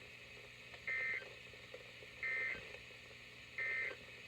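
Three short bursts of Emergency Alert System data tones from a NOAA Weather Radio broadcast: the end-of-message code that closes the weekly test. Each burst is a shrill warble lasting about a third of a second, repeated about every 1.4 seconds.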